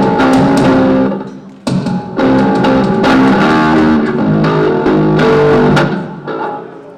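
Live rock band playing a short instrumental passage on electric guitar, bass guitar and drum kit, in two loud stretches with a brief break about a second in, fading out near the end.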